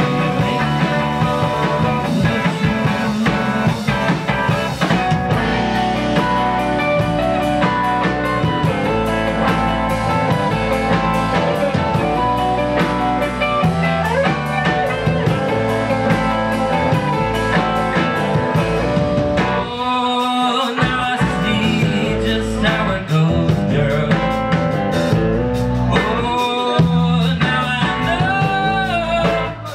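Live rock band playing at full volume: electric guitars, bass guitar and drum kit, with a man singing. About twenty seconds in, the bass and drums drop out for about a second, leaving guitar, then the full band comes back in.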